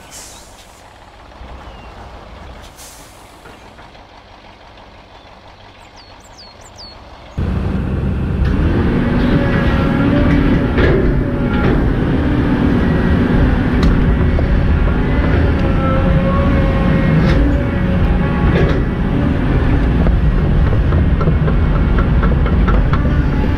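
Quiet surroundings with a few small clicks. About seven seconds in, a loud heavy diesel vehicle engine sound starts abruptly and keeps running steadily, with a few held whining tones and occasional sharp hisses and knocks. The sudden full-level start suggests a truck-engine sound effect laid over the toy play rather than the toy itself.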